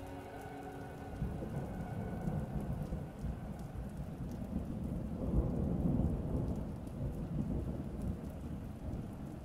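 Rain with a low rolling rumble of thunder that builds from about a second in and is loudest around the middle. Music fades out at the start.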